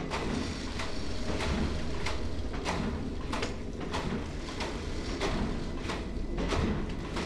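Knitting machine running, its carriage traversing the bed with a regular stroke about every two-thirds of a second over a steady low rumble, knitting row after row.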